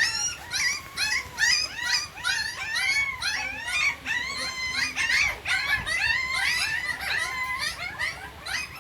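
A litter of puppies whining and squealing, many short high-pitched cries overlapping without a break, as the hungry pups try to nurse from their mother.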